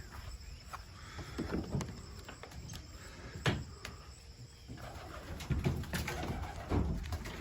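Racing pigeons cooing, a series of low coos. A sharp click about three and a half seconds in.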